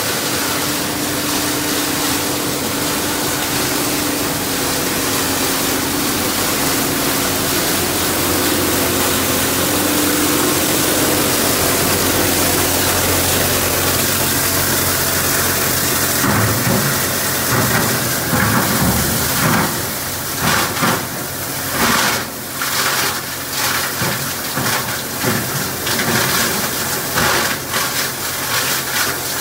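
A rigid-plastic recycling washing line running: a loud, steady mechanical din with motor hum. After about 16 seconds it turns into irregular clattering and knocking as plastic pieces are processed.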